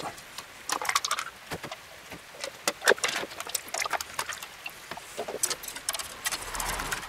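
Irregular light clicks and taps as plastic cream cups are handled and whipping cream is emptied into a stainless steel bowl of eggs. About six seconds in, a wire whisk starts beating the egg and cream, its wires rattling against the metal bowl.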